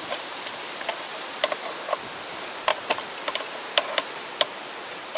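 Ratchet with a 10 mm socket loosening a bolt: short sharp clicks at irregular intervals over a steady hiss.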